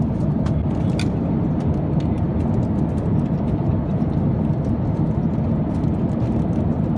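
Steady cabin drone of an Airbus A350-900 airliner in flight: a deep, even rush of airflow and engine noise. A few faint clicks sound about a second in.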